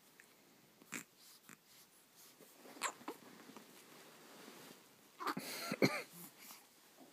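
A week-old young pet making small noises: a few faint clicks and snuffles, then about five seconds in a short squeaky, wavering cry that ends in one sharp burst.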